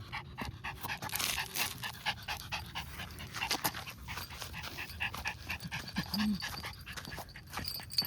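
Chihuahua panting with quick, rapid breaths.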